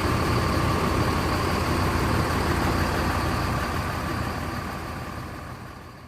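Diesel bus engine idling while being warmed up, a steady rumble with a faint steady whine over it. It fades out over the last three seconds.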